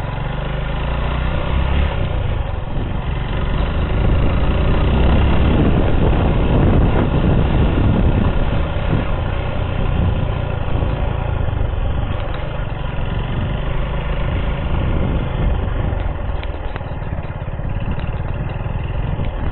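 Motorcycle engine running while it is ridden along a bumpy dirt track, getting louder for a few seconds around the middle.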